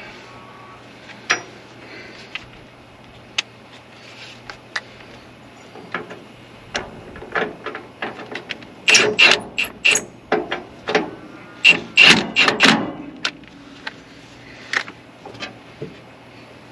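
Metal clanks, knocks and clicks of baler parts being handled and fitted back on by hand: scattered single knocks at first, then a run of loud clanks a little past the middle.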